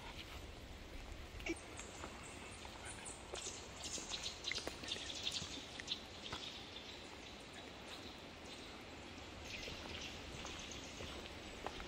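Footsteps on a dry, leaf-littered dirt path in a beech wood, soft crunching and crackling, over a faint outdoor hiss.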